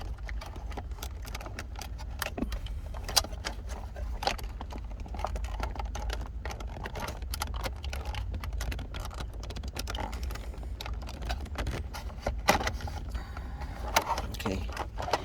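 Irregular small clicks, taps and rattles as a Mercedes W140 S-Class climate control unit and its wiring plug are handled and the plug is worked loose, over a low steady hum.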